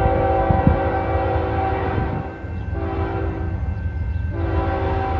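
Multi-chime diesel locomotive air horn of an approaching CN freight train, blown as a crossing sequence. It is held, breaks off about two seconds in, gives a shorter blast, pauses again and comes back on near the end, over a steady low rumble.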